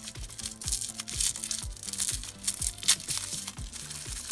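Thin wrapping crinkling as fingers peel it off a small taped packet, over background music with a steady beat.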